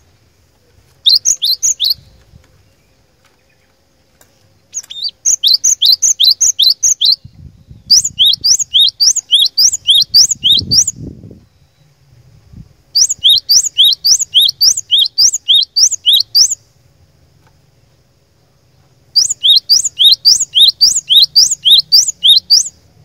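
Cinereous tit (glatik batu) singing: five bouts of rapidly repeated sharp, high whistled notes, about three notes a second, separated by short pauses.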